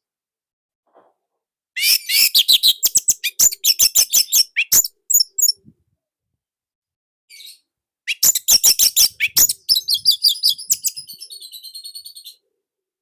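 Orange-headed thrush singing: two loud bursts of rapid, high, jumbled notes with a pause between, the second ending in a fast, even trill.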